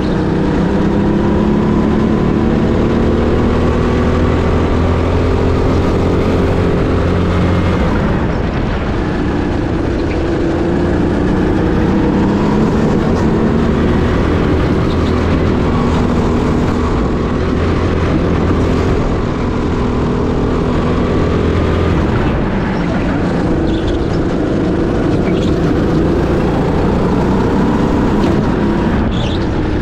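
Birel rental kart's engine recorded onboard at racing speed. Its pitch repeatedly rises under throttle and drops as the driver lifts for the corners.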